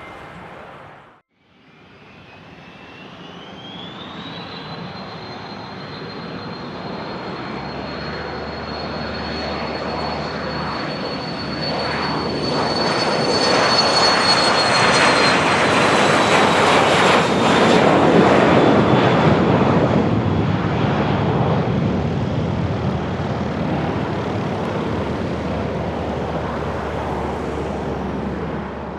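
Learjet 60 business jet's twin Pratt & Whitney Canada PW305A turbofans spooling up for takeoff. A whine rises and then holds, and the jet noise builds to a loud peak as the aircraft rolls past, then slowly eases. The sound cuts out briefly about a second in.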